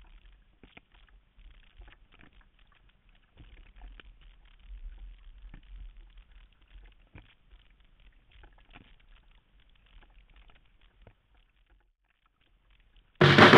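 Faint, muffled splashing and patter of water around a paddled sea kayak, irregular small splashes over a low rumble. Music comes back in loudly near the end.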